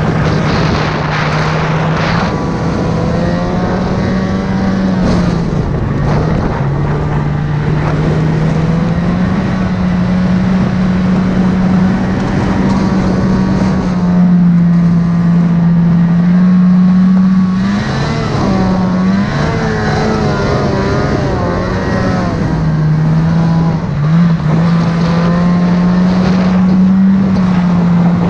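Snowmobile engine running under throttle through deep powder, a steady drone whose pitch wavers, dipping briefly a few times as the throttle eases and comes back on.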